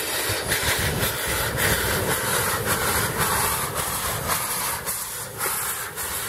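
Nickel Plate Road 765, a 2-8-4 Berkshire steam locomotive, moving slowly in reverse: a steady hiss of steam with repeated exhaust chuffs about twice a second over the low rumble of the wheels on the rail.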